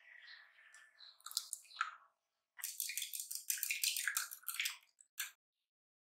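Chopsticks beating eggs and milk in a glass bowl: soft wet stirring at first, then about two seconds of rapid clicking as the chopsticks strike the glass, ending with a single tap.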